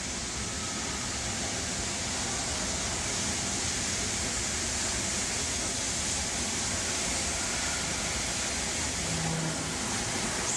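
Stanier Pacific steam locomotive passing at speed through a station: a steady rushing hiss of steam and running gear with no distinct exhaust beats. A low steady tone comes in near the end.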